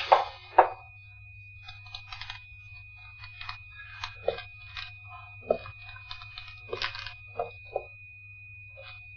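Hard-soled shoes stepping on a tiled floor as a man paces, a string of short, irregular knocks and clicks, over a low steady hum and a thin steady high tone.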